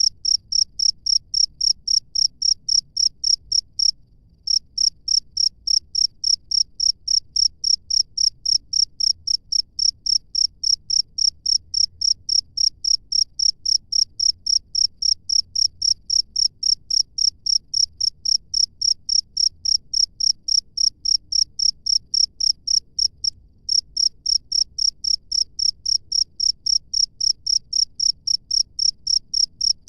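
A single cricket chirping in an even, high-pitched rhythm of about three chirps a second, pausing briefly twice.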